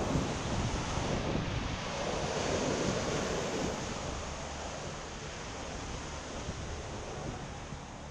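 Sea waves breaking and washing over a rocky, pebbly shore, with wind on the microphone; the surf slowly grows quieter over the second half.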